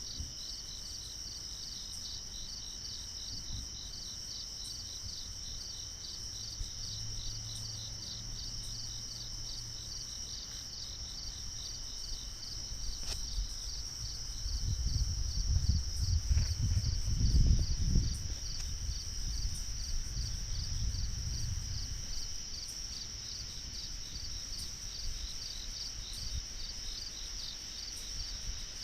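Crickets and other night insects chirping in a steady, pulsing chorus. About halfway through, a low rumble swells for several seconds and fades again.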